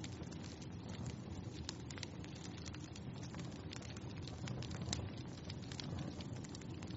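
Wood fire burning in a fireplace, with a steady low rumble of flame and irregular crackles and pops, one sharper snap about five seconds in.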